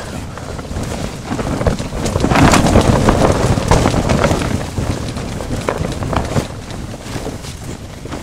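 Orange tent fabric rustling and flapping as it is pushed up and handled overhead, with wind buffeting the microphone; loudest about two to four seconds in.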